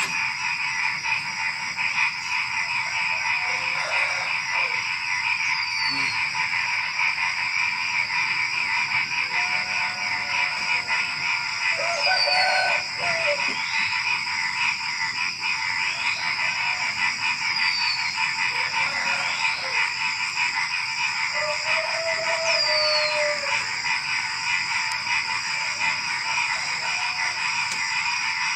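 A dense, continuous night chorus of frogs and crickets calling all at once, steady in level. About every five or six seconds a short, high, falling chirp stands out above it.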